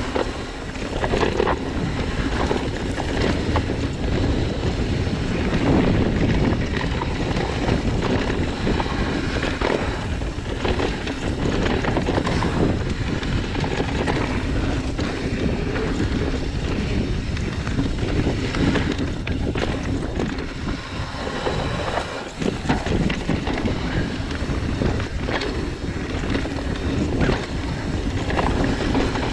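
Wind buffeting the microphone of a chest-mounted action camera while a mountain bike rolls over a dirt singletrack, with constant tyre noise and frequent knocks and rattles from the bike over bumps.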